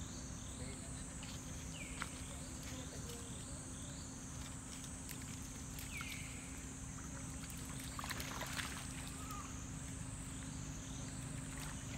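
Young monkeys splashing and wrestling in a shallow muddy pool, with a burst of splashing about eight seconds in. Behind it runs a steady high insect buzz over a low rumble, and a few short falling chirps sound now and then.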